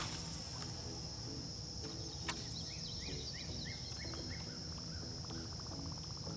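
Steady high-pitched insect drone, with a bird singing a quick run of short falling notes about two and a half seconds in, just after a single sharp click.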